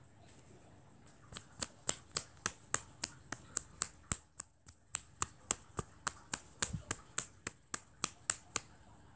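A steady run of sharp, crisp clicks, about three or four a second, starting about a second in and stopping near the end, with a brief break partway through.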